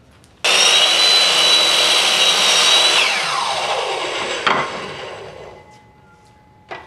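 Skilsaw compound miter saw starting up with a sudden high whine and crosscutting a wooden board. After about two and a half seconds the motor is switched off and the whine falls away as the blade spins down, with a sharp knock partway through the spin-down and a click near the end.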